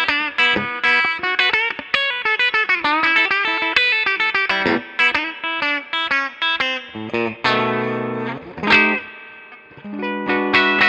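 Epiphone Les Paul 100 electric guitar, amplified, played in fast picked single-note runs with bent, wavering notes. About seven seconds in a held note rings and fades, and the fast runs start again near the end.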